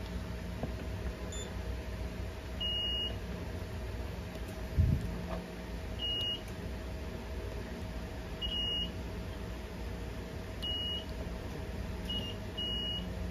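Multimeter in continuity mode giving short, high, single-pitched beeps, about six at irregular intervals, each time its test probes bridge two connected points on a switch-mode power supply board. A dull knock comes about five seconds in, over a faint steady hum.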